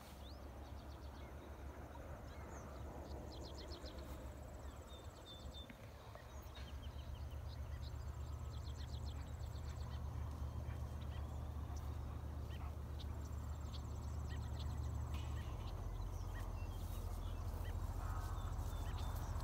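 Wind buffeting the microphone with a low, uneven rumble that grows stronger partway through, over faint high insect trills from the surrounding grass and a few short bird chirps.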